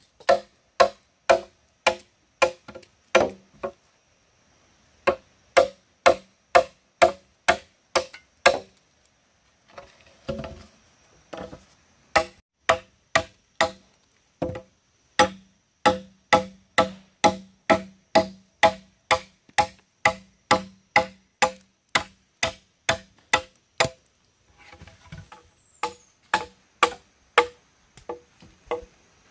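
Machete chopping into a green bamboo pole, sharp blows about two a second, each with a short ringing note, in runs broken by brief pauses.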